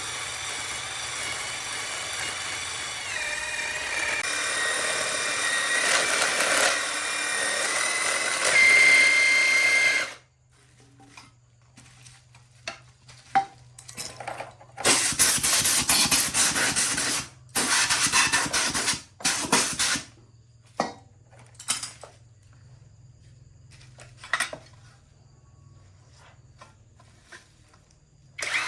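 Handheld power tool running steadily with a whine for about ten seconds, then cutting off. After a pause come several short, loud bursts of hissing, grinding noise.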